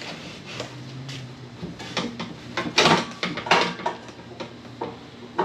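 Steel tubes of a roof-mounted cargo carrier knocking and clinking together as its pieces are fitted and handled, with the loudest clanks about three seconds in.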